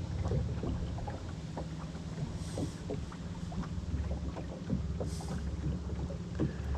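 Boat motor running steadily at low speed, a low even hum, with scattered light knocks and two brief hisses about two and a half and five seconds in.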